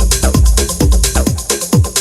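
Electronic dance music with a steady kick drum about twice a second and hi-hats above it; the deep sustained bass drops out near the end, leaving the kicks.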